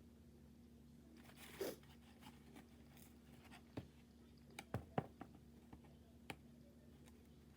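Quiet eating sounds from chicken wings. There is a short crunchy tearing sound about a second and a half in, then scattered small clicks and taps, the loudest a pair about five seconds in.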